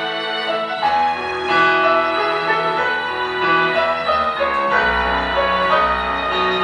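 Instrumental music played on a Nord Stage 2 stage keyboard: a piano melody over sustained string chords. A bass line comes in about a second in and deepens near the end.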